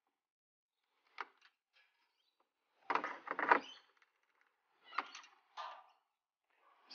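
Side cutters snipping through the plastic locking pins that hold the Isuzu grille badge, each cut a short sharp snap. A faint click about a second in, then two loud snaps around three seconds, the loudest of all, and two more near five seconds.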